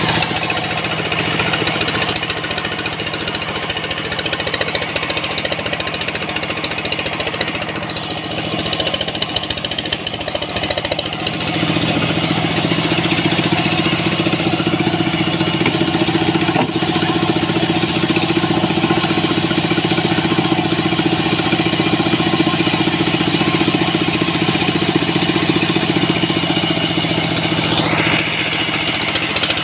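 Engine-driven vertical sawmill running steadily while a dry bay-leaf (salam) log is fed through the blade and sawn lengthwise; from about twelve seconds in the engine hum grows stronger and steadier as the saw works through the cut.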